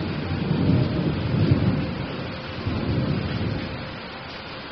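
Rolling thunder over steady rain. The low rumble swells about a second and a half in and again around three seconds, then dies away while the rain hiss carries on.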